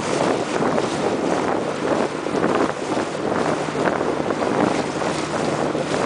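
Wind buffeting the microphone: a steady, fluttering rush of noise.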